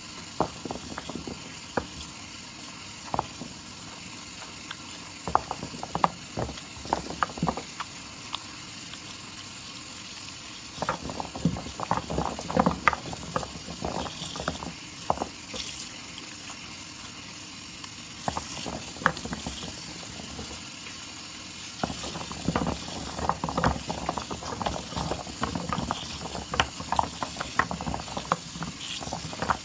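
Wet soap lather and foam being squeezed and worked: irregular clusters of wet crackles and clicks, with short quieter pauses between them.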